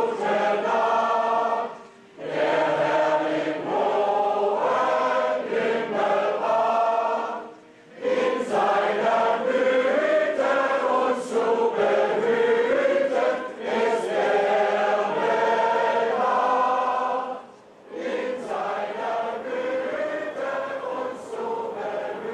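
Men's choir singing a German song in long held phrases, with short pauses between phrases. It grows a little quieter in the last few seconds.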